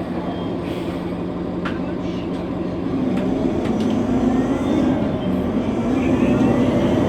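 Nova Bus LFS city bus running, heard from inside the cabin: a steady low engine drone that, about three seconds in, gets louder and rises in pitch as the bus picks up power.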